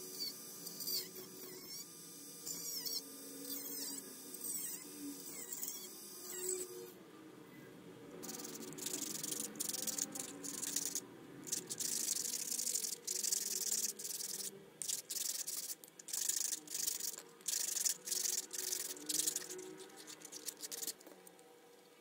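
A small cordless rotary tool with a cut-off disc whines as it cuts a ribbed plastic tube, its pitch dipping again and again as the disc bites, for about the first seven seconds. Then the cut end of the tube is rubbed back and forth on sandpaper in quick rasping strokes until near the end.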